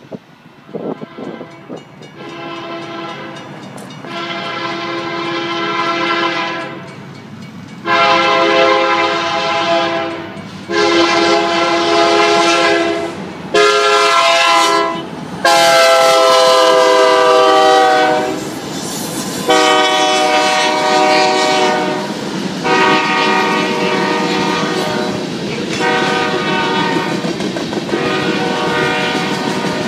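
Union Pacific SD9043MAC lead locomotive sounding its multi-chime air horn for a grade crossing in a long series of blasts. Fainter blasts begin about two seconds in. From about eight seconds there is a loud long, long, short, long sequence, followed by more long blasts. Underneath is the rumble of the locomotives and the clickety-clack of the freight cars rolling past.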